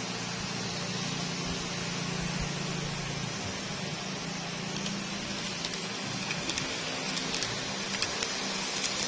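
Model train running on model track: a steady motor hum under hiss, with light clicks of the wheels over the rail joints starting about halfway and coming more often and louder as the cars pass close.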